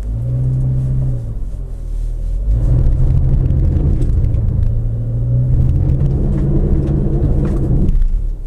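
2016 Toyota RAV4's 2.5-litre inline-four engine revving under load as the SUV climbs a loose gravel hill in reverse with the all-wheel-drive lock engaged. A short rev falls back about a second in; the engine then holds high revs for several seconds and eases off near the end.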